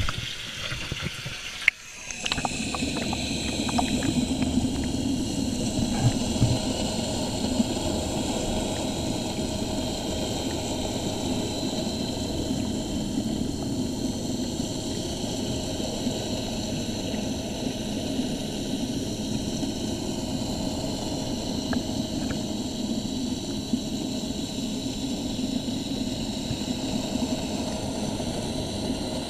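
A sharp click, then about two seconds in the sound changes as a submerged camera goes under water: a steady mechanical drone heard through the water, with a low hum and a few steady tones, unchanging to the end.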